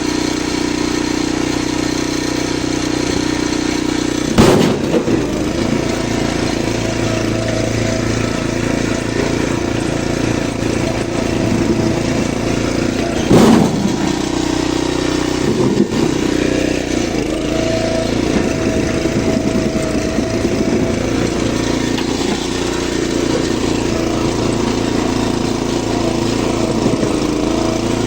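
Small engine of a motorised oil palm fruit-bunch carrier running steadily, with two loud thumps about four and thirteen seconds in and a lighter one shortly after.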